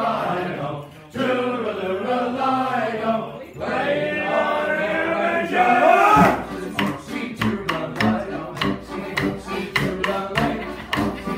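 A group of men's voices sing the dance tune on "la la" for about six seconds. Then the Welsh Border morris stick dance begins: wooden morris sticks strike together in repeated sharp clacks, keeping a quick rhythm over band music.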